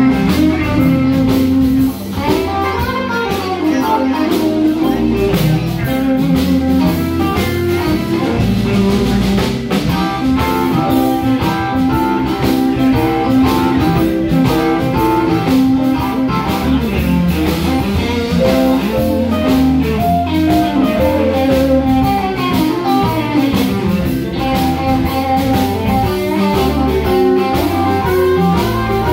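Live blues band playing: guitar lines over bass and a steady drum-kit beat.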